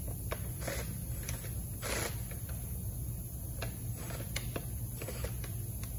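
Scattered light clicks and a few brief scraping knocks as a small cordless screwdriver is fitted to the handle clamp screw on a string-trimmer shaft, over a steady low hum.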